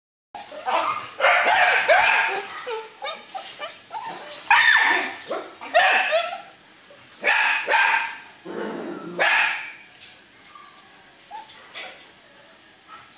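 Phu Quoc dogs yipping and barking in a string of short bursts as they lunge at each other, dying down over the last few seconds.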